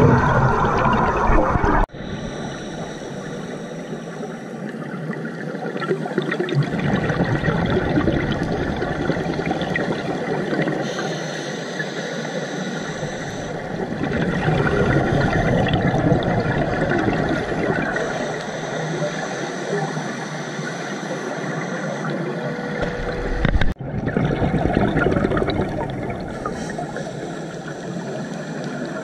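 Scuba regulator breathing heard underwater. Quieter inhalations with a thin high hiss alternate every few seconds with exhaled air bubbling out of the regulator in loud low rumbling gurgles. The sound breaks off abruptly twice, about two seconds in and near the end.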